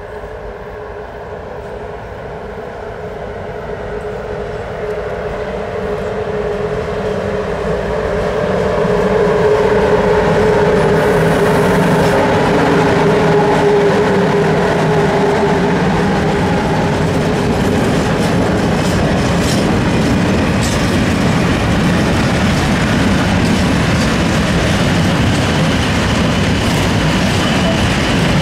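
A train approaching and passing close by. It grows louder over the first several seconds with a steady droning tone, then runs on at full level with wheels clattering over rail joints.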